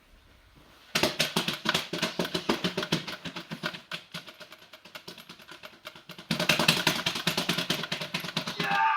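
A small motor or engine-like rattle running with a fast, even pulse. It starts about a second in and gets louder a little past six seconds in.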